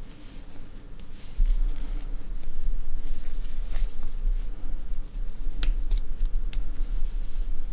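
Yarn rustling and a crochet hook ticking lightly as a stitch is worked by hand. A low rumble starts suddenly about a second and a half in and runs on under it.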